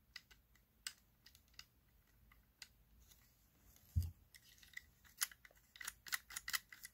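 Scattered light clicks and taps from handling an electromechanical clock mechanism in its sheet-metal frame. There is a dull thump about four seconds in as the unit is turned over, and the clicking grows busier after that.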